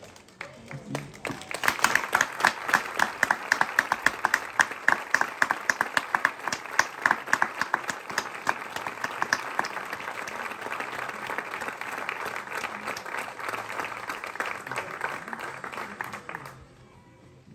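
Crowd clapping and applauding. It begins about a second in with loud, sharp individual claps, blends into a denser, steadier applause, and stops suddenly about a second before the end.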